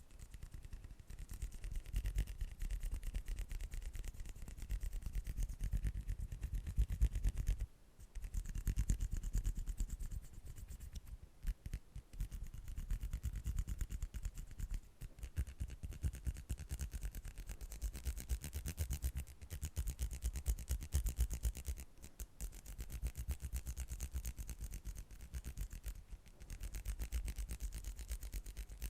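Close-miked ASMR hand sounds: rapid rubbing and scratching of hands right against the microphone, in long runs with a few brief pauses.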